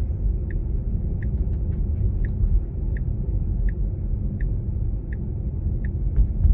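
Tesla Model 3's turn-signal indicator ticking steadily in the cabin, about three ticks every two seconds, signalling the right turn ahead, over a low road and tyre rumble.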